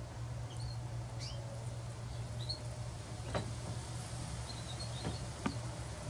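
Small finches giving short, faint, high chirps, scattered every second or so, with a few sharp clicks in the second half, over a steady low hum.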